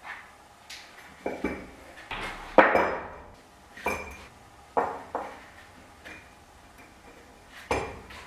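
Steel strip pieces and a steel bench vise being handled: a string of separate metal clanks and clinks, about eight in all, the loudest about two and a half seconds in.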